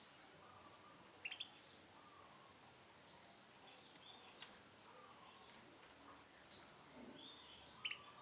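Young lemon-yellow canary giving faint, short chirps again and again, with two sharper, louder notes about a second in and near the end.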